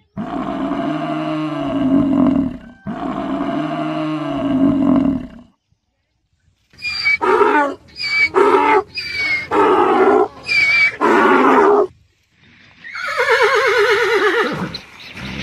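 Animal calls: two long, low calls back to back, then a run of about six short calls, and near the end a horse whinnying, a long call falling in pitch with a quick wobble.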